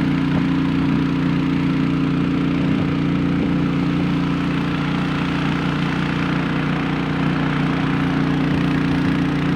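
An engine running steadily at an even speed, a constant drone that does not change in pitch.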